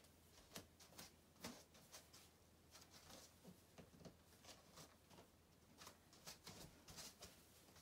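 Near silence with faint, irregular rustles and soft taps, a person moving about in a long sheer skirt: cloth swishing and light shuffles.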